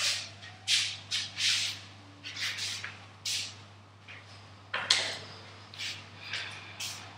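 Shoes stepping and scuffing on a tiled floor: irregular short scrapes, about one or two a second, over a steady low hum.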